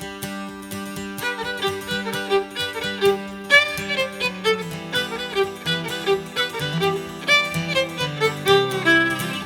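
Intro music: a fiddle tune over a held low note, with the melody coming in about a second in.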